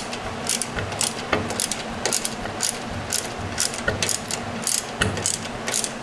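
Hand ratchet wrench clicking in quick short strokes, about two or three clicks a second, while a bolt on the rear brake pedal mount is worked loose.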